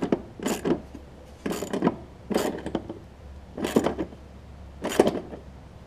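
Hand tools working the blade-clutch cable's adjusting bolt on a Toro Recycler push mower: short clusters of ratcheting metal clicks at uneven intervals, about seven in all.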